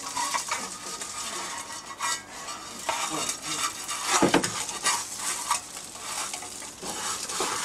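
Oil sizzling in a hot frying pan just used to pan-fry gyoza, with a sharp knock of cookware about four seconds in.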